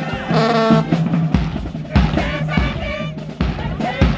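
High school marching band playing a tune: brass horns and sousaphones sounding sustained notes, with heavy bass drum beats coming in about a second and a half in.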